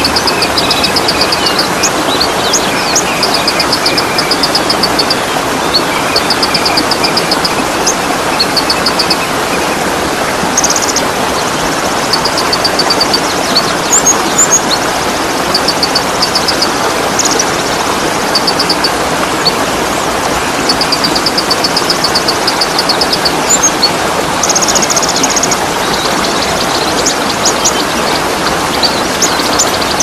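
Steady rush of a waterfall, with small songbirds singing rapid, high trills and a few single chirps every second or two over it.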